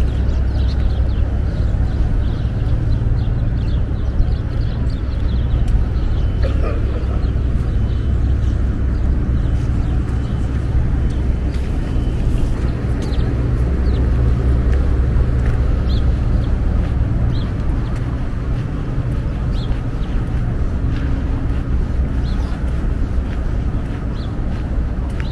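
Downtown street ambience: a steady low rumble of passing traffic, with a few faint scattered clicks.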